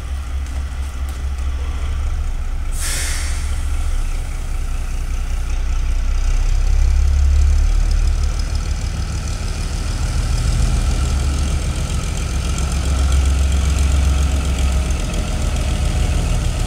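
Small diesel locomotive's engine running with a low rumble that swells and eases as it comes by pulling a tank car. There is a brief hiss about three seconds in.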